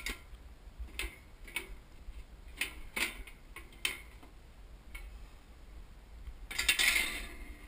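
Light metallic clicks and clinks as the wire cooking grate and steel parts of a smoker are handled, scattered through the first five seconds. Near the end comes a louder rattle and scrape lasting about a second as the grate is set down into the smoker's base.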